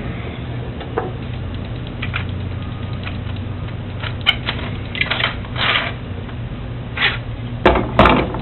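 Tools being handled on a workbench while a router is set up: scattered clicks, knocks and rustles, busiest in the second half, over a steady low hum.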